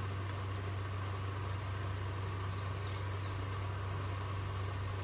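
Steady low hum over an even background hiss, with a faint high chirp and a small tick about three seconds in.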